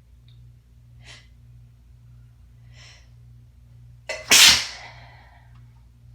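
A woman sneezes once, loudly, after two short sharp intakes of breath; a rough, congested sneeze of someone with a head cold.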